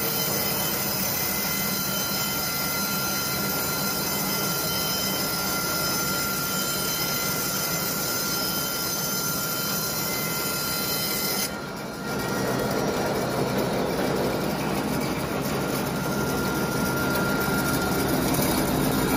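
Portable sawmill running and cutting wood: a steady, noisy whine with a thin high tone above it. About twelve seconds in the sound dips briefly, then carries on with a slightly different, fuller noise.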